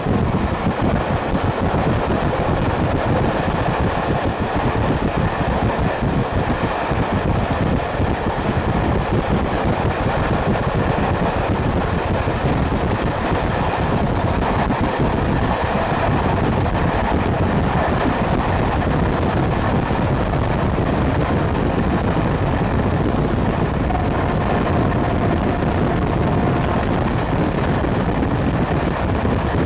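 Passenger train running at speed, heard from a carriage: a steady rumble of wheels on the rails with wind buffeting the microphone. A faint whine comes in for a few seconds near the end.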